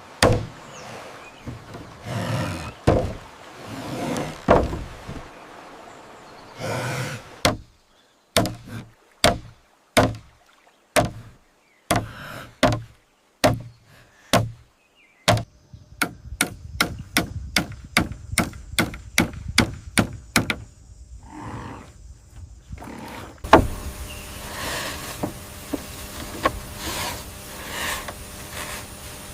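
Bamboo and wood being knocked and struck. Loose clattering knocks come first, then a long run of sharp, evenly paced strikes, about two a second, that stops about twenty seconds in, and after that a steady outdoor hiss.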